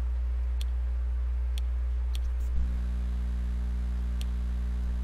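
Steady low electrical hum, its tone thickening about two and a half seconds in, with a few faint sharp ticks spread through.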